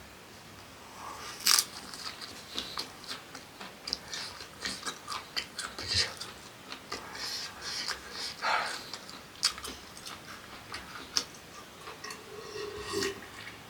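A string of small, irregular clicks and taps close to the microphone, with a louder snap about one and a half seconds in.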